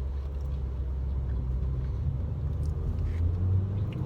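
Car engine and road noise heard from inside the cabin while driving, a steady low hum whose pitch steps up about three seconds in as the car speeds up.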